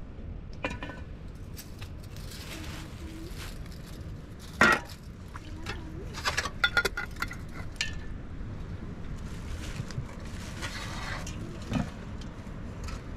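Scattered clinks and taps of a glass spice jar and metal cooking pots and trays being handled, with some rustling; the loudest is a sharp knock about four and a half seconds in, followed by a quick run of clinks a couple of seconds later.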